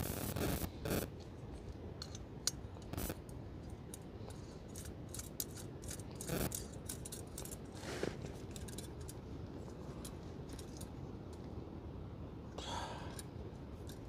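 Camping cooking gear and food packets being handled and set out on a towel: scattered light clicks, taps and scrapes with some rustling, a few louder knocks among them.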